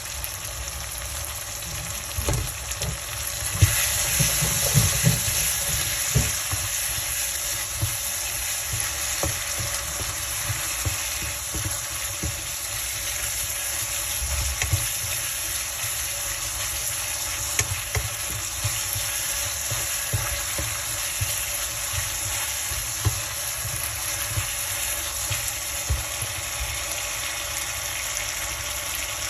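Food sizzling as it fries in a pan for dal fry, with frequent light clicks and scrapes of a spoon stirring it. The sizzle grows louder about four seconds in.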